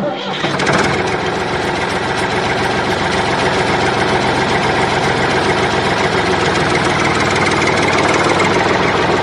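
Tractor engine running steadily with a fast low knock, as if idling. It starts suddenly right at the start and does not change, even across the picture cut.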